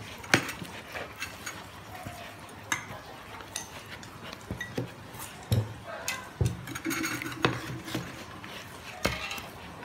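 Utensil clinking and scraping against a bowl as batter is stirred, in irregular clicks and knocks.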